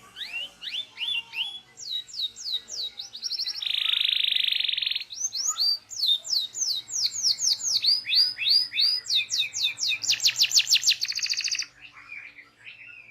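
Local domestic canary singing a continuous song: runs of quick, downward-sweeping whistled notes, a buzzy held note about four seconds in, and a fast rolling trill about ten seconds in, going quiet near the end.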